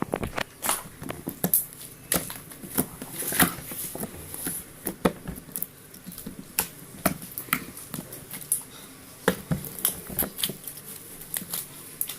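Tofu slime being squished and worked by hand, making irregular small clicks and pops.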